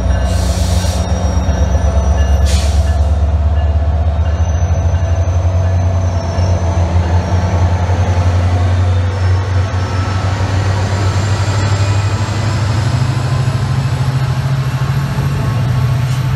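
SunRail double-deck commuter train rolling past at close range, with wheel and rail noise over the steady low hum of a diesel locomotive. There are two short hisses in the first three seconds, and the engine hum rises in pitch about twelve seconds in.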